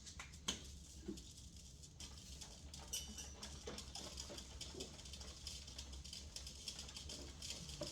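Faint scattered clicks and light rustling of small objects being handled, over a low steady hum.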